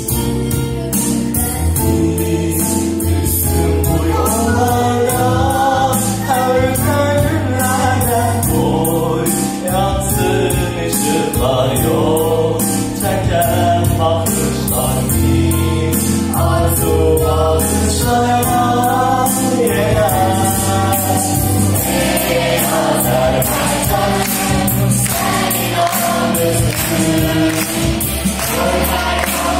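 A song sung by a choir over instrumental accompaniment with a steady beat. The instruments play alone at first, the sung melody comes in about four seconds in, and the sound grows fuller later on.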